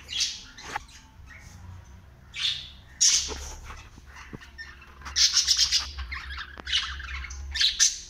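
Pet parrots, a cockatiel and a budgerigar, squawking and chattering in short harsh bursts, coming thicker and louder over the last three seconds.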